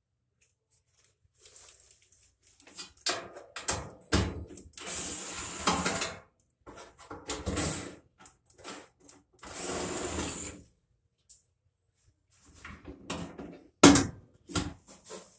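Cordless drill-driver running in two short spins of about a second each, unscrewing the mounting of a gas dryer's gas valve assembly, amid clicks and knocks of metal parts being handled. A sharp knock near the end as the valve assembly is taken hold of.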